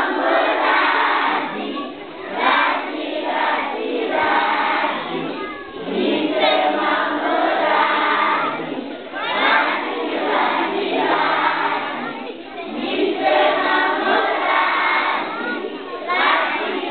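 A large group of children singing together in unison, line by line with short pauses between phrases.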